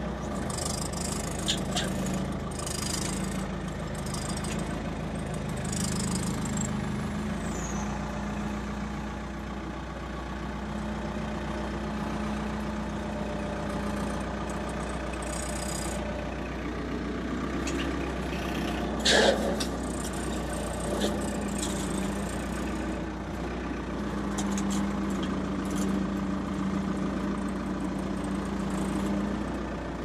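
Skid steer loader engine running steadily as the machine drives, heard from the operator's seat, with one sharp knock about two-thirds of the way through.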